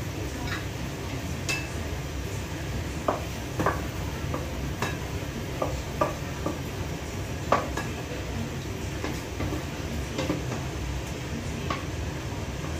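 Wooden spatula knocking and scraping in a nonstick frying pan and against a serving bowl as stir-fried chicken and vegetables are stirred and dished out, in irregular clicks and knocks over a steady low hum.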